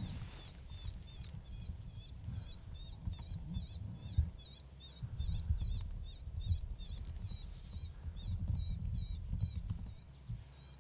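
Electronic predator call playing a baby cottontail distress sound: short high squeals repeated evenly, about three a second, which fade near the end. A low rumble runs underneath.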